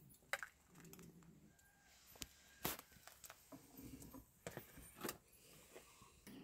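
A metal ladle clinking a few times against an aluminium pot and a plate while soup is served out, a few sharp clinks over a quiet background. A dog whimpers faintly about a second in.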